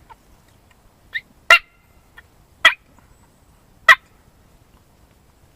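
Turkey clucks made on a mouth diaphragm call: three short, sharp notes about a second apart, with a fainter one just before the first.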